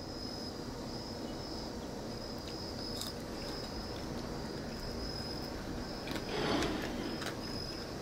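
Quiet background with insects chirping steadily outside in a high, evenly repeated pulse. A brief swell of noise comes about six seconds in, and there are a few faint clicks.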